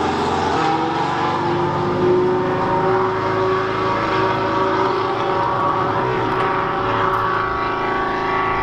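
Racing car engine running at speed elsewhere on the circuit: a steady drone with slight shifts in pitch.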